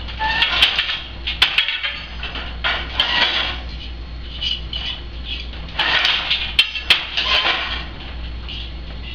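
Hand weaving on a wooden countermarch loom: a boat shuttle hisses across the warp and the beater knocks the weft into place, with wooden clacks from the loom. This comes in two bursts of activity, the second starting a little past halfway.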